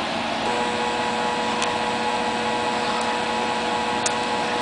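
Stepper motor driven by an Arduino through a simple BC547 transistor driver, stepping at a steady rate: a steady whining tone starts about half a second in and holds, over a constant hiss.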